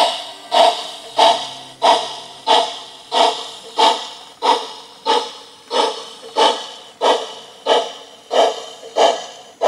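Model steam locomotive's onboard sound unit giving a steady, even beat of about three sharp strokes every two seconds, each fading quickly, as the test train runs slowly.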